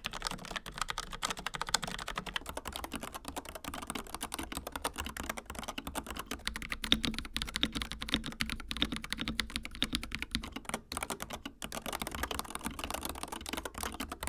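Fast typing on mechanical keyboards: a Logitech MX Mechanical with tactile Kailh Brown switches, giving way about six seconds in to an Akko 5075B Plus with linear Akko Cream Yellow switches, which sounds fuller and deeper.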